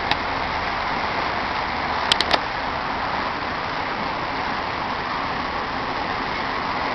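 Steady rushing noise of an approaching 2TE116 diesel-hauled suburban train, still some way off, with three short clicks about two seconds in.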